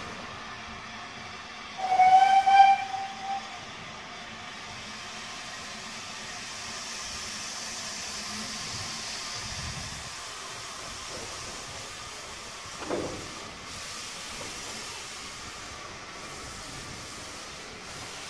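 Steam locomotive whistle giving one short blast about two seconds in, followed by a steady hiss of steam that swells and fades; a brief thud comes about two-thirds of the way through.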